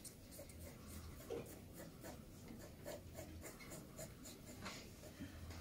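Pencil drawing on paper: a series of faint scratching strokes of graphite as lines are ruled along the figure.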